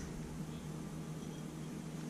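Steady low hum with a faint even hiss: room tone, with no distinct handling sounds.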